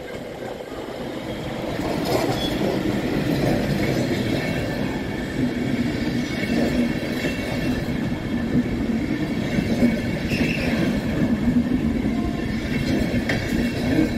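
A DB Intercity train hauled by an electric locomotive passes close by at a station, its coaches rolling past with a steady rumble that builds over the first couple of seconds. Wheels clack over rail joints, with brief wheel squeals.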